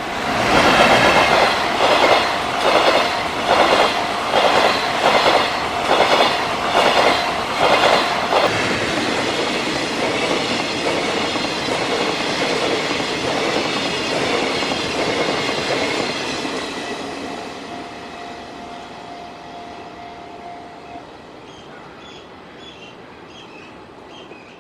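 Freight train of flatcars loaded with long rails passing close, its wheels clattering over the rail joints in a steady beat of knocks, a little faster than one a second. After about eight seconds the clatter stops and the train's noise fades steadily as it draws away.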